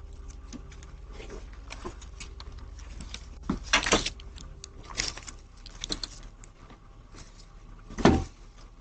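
A string of sharp knocks and rattles, loudest about four seconds in and again near the end, over a steady low hum from a doorbell camera's microphone.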